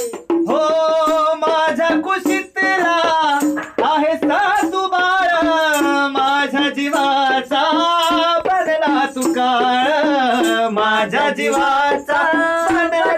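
Marathi folk-song music: a wavering melodic line over a small hand drum tapped in a quick rhythm.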